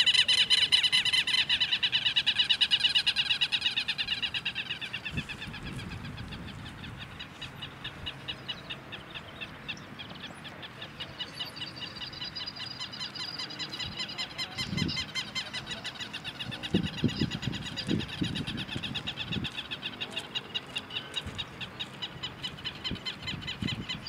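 A rapid, evenly pulsing animal call, loudest in the first four seconds, then fainter but keeping on throughout. A few low rumbles come about a quarter of the way in and again after the middle.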